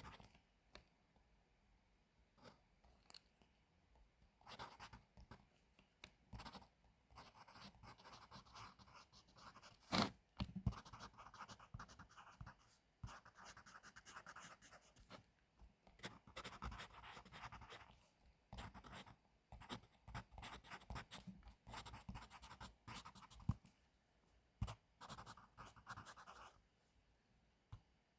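Pencil scratching across paper in short runs of strokes with pauses between, and a few sharper taps, the loudest about ten seconds in.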